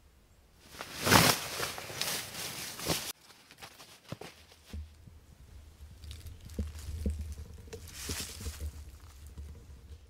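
Footsteps crunching and rustling through dry fallen leaves, loudest for about two seconds near the start and again near the end, over a low steady rumble.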